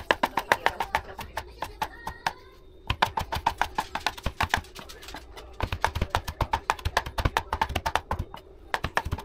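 Chef's knife chopping fresh parsley on a plastic cutting board: quick, even knocks of the blade, about six a second, stopping for a moment about a second and a half in before carrying on.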